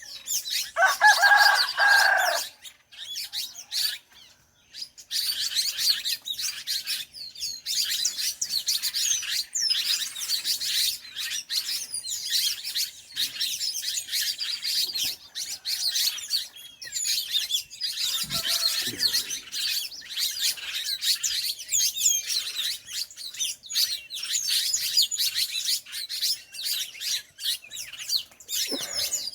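Many small birds chirping and singing together in a dense dawn chorus. A rooster crows once about a second in, the loudest sound.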